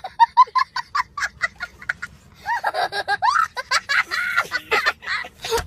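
A young boy laughing hard: a fast run of high-pitched 'ha' bursts, about six a second, then longer squealing laughs that rise and fall.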